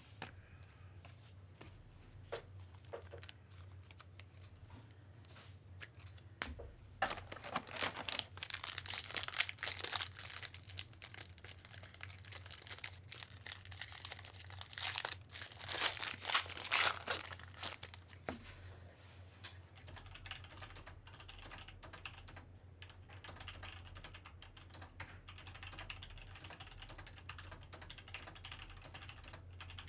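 Foil trading-card pack wrappers crinkling and tearing open, loudest twice near the middle, among many scattered soft clicks from cards being handled and flicked through.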